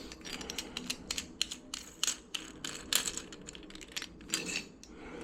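Irregular light clicks and taps of small hard plastic and metal parts being handled, several a second, with a few louder clicks, as toilet handle parts are taken out and fitted.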